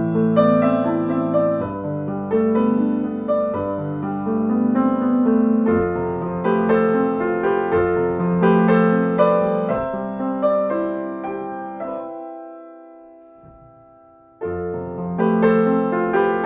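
Gentle instrumental piano music, sustained notes played in a slow flow. About three-quarters through it dies away almost to silence, then a new passage starts suddenly near the end.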